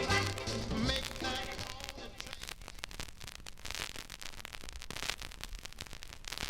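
The end of a cha-cha dance record fading out in the first second or two, then scattered crackle and clicks of a vinyl record's surface noise as the record plays on without music.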